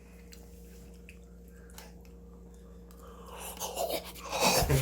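Quiet eating sounds: faint clicks and chewing over a steady low hum. In the last second and a half a louder stretch of noise builds.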